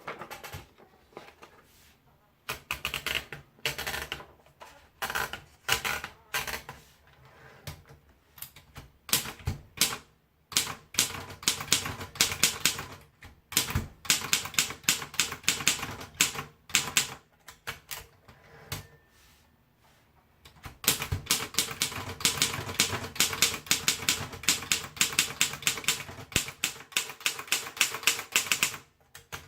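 Princess 300 typewriter being typed on: bursts of quick key strikes with short pauses between them, then a long, steady run of typing near the end.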